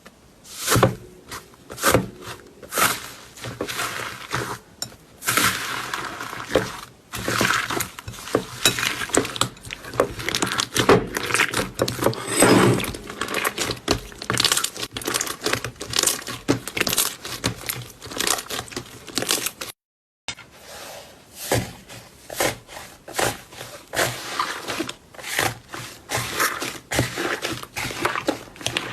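Slime being squeezed and stretched by hand, a dense, irregular run of crackles and pops with a brief break about twenty seconds in.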